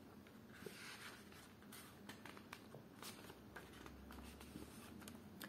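Near silence: room tone with a faint brief rustle about a second in and a few faint soft clicks.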